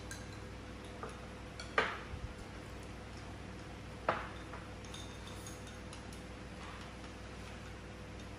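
A few sharp clicks and clinks of chopsticks and spoons against porcelain bowls and glasses, the loudest just before two seconds in and another about four seconds in, over a steady faint hum.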